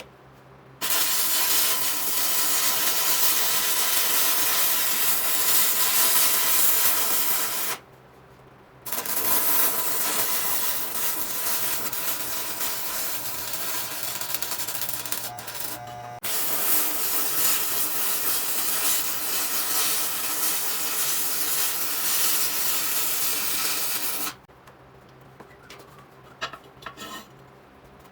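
Arc welding on 1/4 inch steel angle iron with a cheap Harbor Freight welder: a steady crackling hiss in three long beads of about seven seconds each. Each bead starts and stops abruptly, with a short pause between the first two and a brief break before the third. A few light ticks and clinks follow near the end.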